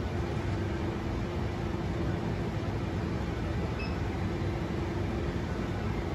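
Steady low hum and hiss of machine and room noise, with a faint held tone underneath.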